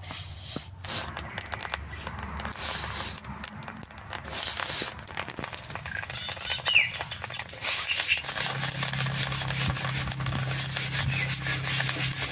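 Water lily seeds crackling and popping in hot sand in a wok, with the scraping rustle of the sand being stirred with a bundle of sticks.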